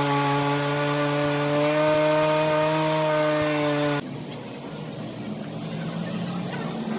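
A motor running with a steady, high-pitched whine, its pitch rising slightly, that cuts off abruptly about four seconds in, leaving a quieter, rougher noise.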